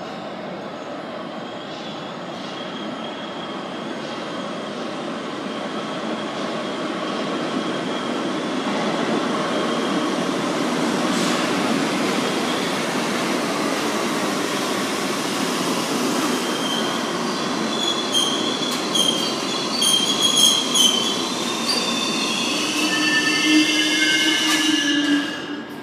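New York City Subway 1 train pulling into an underground station. Its rumble grows steadily louder as it approaches, then the wheels squeal in several high tones as it brakes, and the sound drops away as the train stops near the end.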